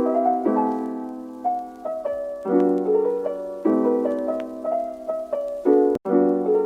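Background piano music: chords struck about once a second and left to ring and fade, with a brief cut in the sound about six seconds in.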